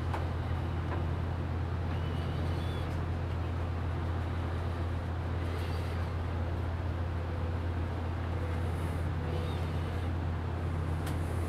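A steady low rumbling hum, with a few faint high chirps over it and a couple of sharp clicks near the end.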